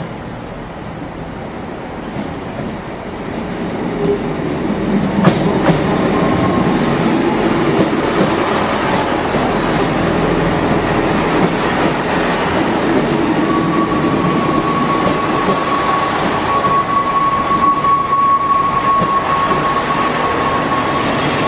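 A train running on rails, growing louder over the first few seconds, with a sharp click about five seconds in and a steady high squeal from about halfway through.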